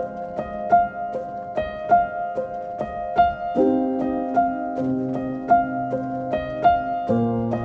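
Background music: a gentle piano tune of repeated plucked-sounding notes over held chords that change about every few seconds.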